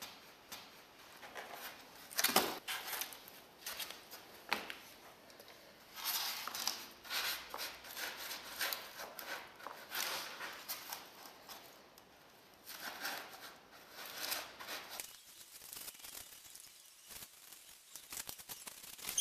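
Styrofoam pieces being handled and coated with wet cement by gloved hands: irregular rustling, scraping and squeaking of foam. Two sharp knocks, about two and four and a half seconds in.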